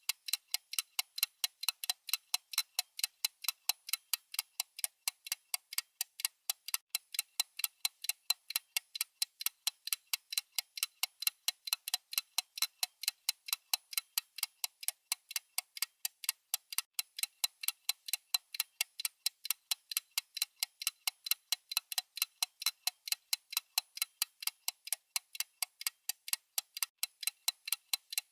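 Clock-style ticking sound effect, with evenly spaced sharp ticks several times a second at a steady, unchanging pace.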